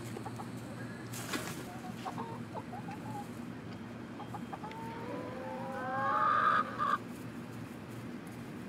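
Hens clucking in short scattered calls, then one hen gives a long, rising call about five seconds in that grows louder and cuts off suddenly about two seconds later. A sharp click sounds about a second in.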